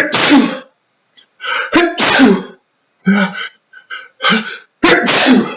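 A man sneezing loudly over and over, about five sneezes in quick succession: an allergic sneezing fit set off by chinchilla dust-bath dust.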